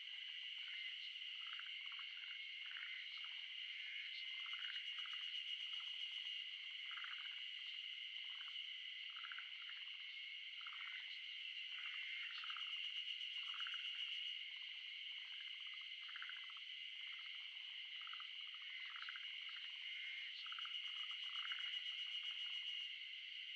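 Natural outdoor animal chorus: a steady high-pitched drone under many short overlapping calls, several a second. A fast pulsing high buzz swells in and fades three times.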